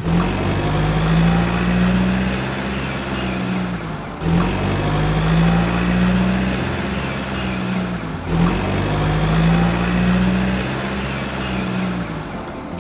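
A steady engine hum that repeats as an identical loop about every four seconds, three times over, typical of an added engine sound effect.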